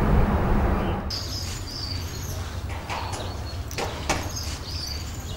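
Outdoor ambience with short, high chirping calls scattered over a steady low rumble, after a louder sound fades out in the first second.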